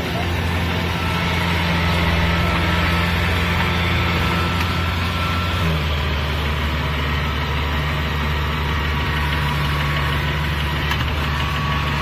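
Kubota DC-70 combine harvester's diesel engine running steadily as the crawler machine drives out of the paddy onto the bank; its low note shifts about halfway through.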